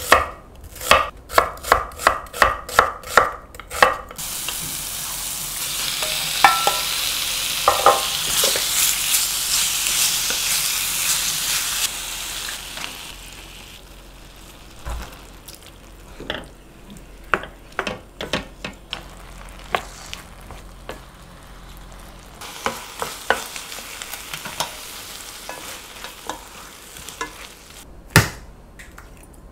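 A knife slicing an onion on a wooden cutting board, about nine quick, even strokes. Then a steady hiss for about eight seconds, followed by scattered light kitchen taps and clinks, a second, fainter hiss, and two sharp clicks near the end.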